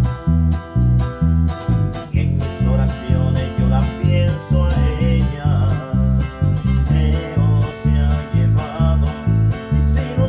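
Guitar and bass guitar playing a song together. The bass hits strong low notes about twice a second under a guitar melody.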